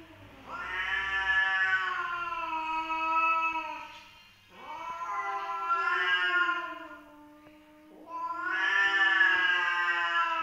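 Adult tomcats caterwauling at each other in a standoff: three long, wavering yowls of about three seconds each, one after another. Typical of a territorial dispute between rival males.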